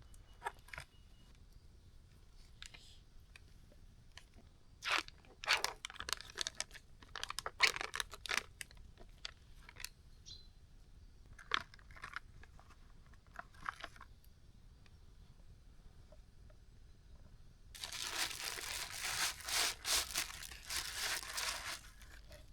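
Scattered sharp crunches and tearing sounds, then a dense stretch of steady crunching near the end.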